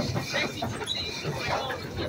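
Indistinct voices of people talking in the background, over a steady low noise.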